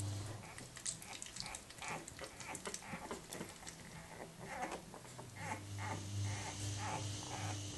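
Newborn Old Danish Pointer puppies making faint, short squeaks and grunts, with small clicks among them. A low steady hum comes in about five seconds in.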